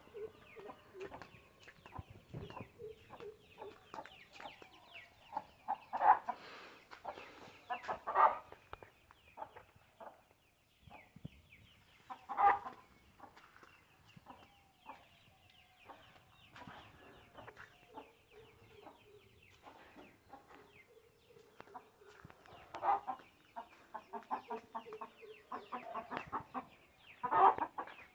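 Chickens clucking on and off throughout, a run of short calls with several louder calls spread through.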